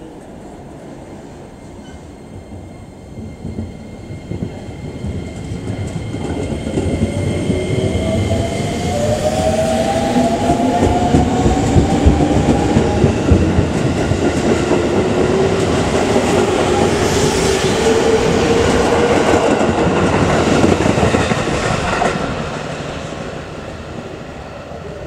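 JR 205-series 5000-subseries electric train pulling away: its VVVF inverter-driven traction motors whine in several rising tones as it gathers speed, over the loud noise of the cars' wheels running along the rails as they pass. About 22 s in the sound drops suddenly to a quieter, distant rumble.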